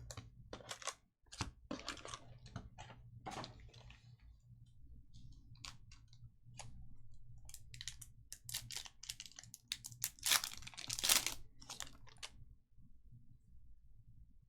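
Trading card packs being opened and cards handled: light crackles of foil wrappers and clicks of cards being slid and stacked, busiest about ten seconds in.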